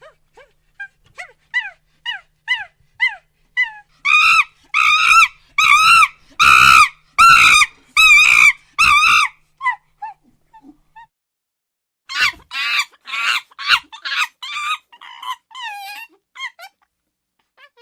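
Monkey calls: a run of short, falling squeaks about two a second, then a string of loud shrieking calls, and after a pause a fast, chattering run of calls.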